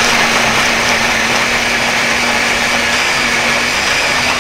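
Electric hand blender with a chopper bowl running steadily at one constant speed, a loud even whirr over a steady hum. It is chopping a thick, sticky paste of softened dried fruit that it is barely mixing.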